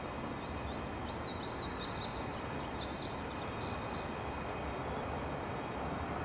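Steady low noise of a distant CSX freight train's diesel locomotives approaching. A small bird sings a quick run of high chirps from about half a second in until about four seconds in.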